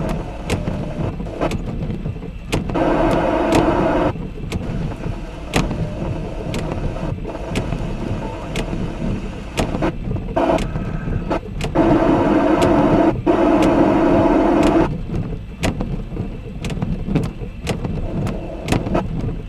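Rainstorm: drops tick irregularly close to the microphone over a steady low rumble. Twice a steady hum starts and stops abruptly, first for about a second and a half and then for about three seconds.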